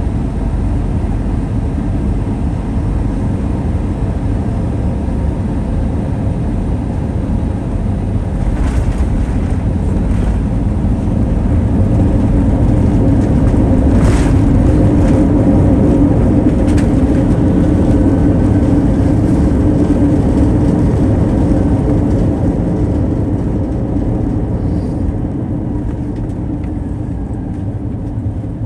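Cabin noise inside an Airbus A321-200: steady engine and airflow rumble that swells about halfway through and eases off near the end, with a few faint knocks.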